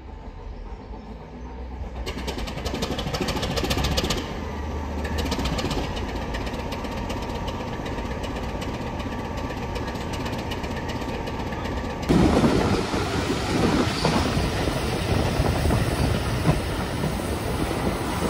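Class 25 diesel locomotive's Sulzer six-cylinder engine running with a low rumble, growing louder over the first few seconds. About twelve seconds in it gives way to the rumble, wheel noise and wind of a moving train heard from the carriage.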